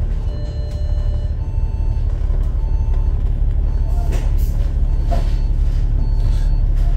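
Hong Kong double-decker tram running, heard from the upper deck: a steady low rumble with faint whining tones that come and go.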